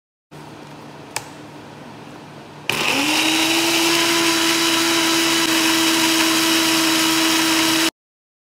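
Countertop electric blender switching on about three seconds in, its motor rising briefly in pitch and then running steadily as it purees chunks of mango, stopping suddenly near the end. Before it starts there is one sharp click.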